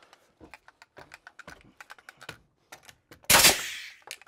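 Light clicks and knocks of the tool and lumber being handled, then, about three seconds in, one loud shot from a nail gun driving a nail to fasten the new sistered joist.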